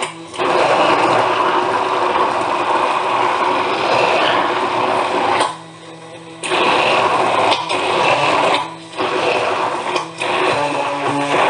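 Electric kitchen mixer motor running at speed with a steady whine, switched off for about a second midway and briefly twice more near the end, starting up again each time.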